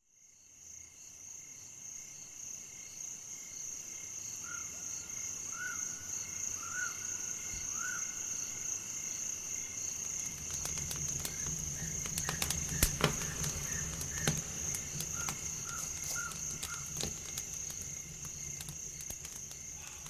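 Insects, crickets, trilling steadily and high-pitched, with a few short chirps repeated in two groups. A low hum and scattered sharp clicks join about halfway through.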